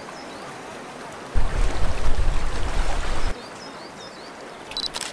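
Sea water washing and lapping, with a loud low rush for about two seconds in the middle that starts and stops abruptly. A camera shutter clicks near the end.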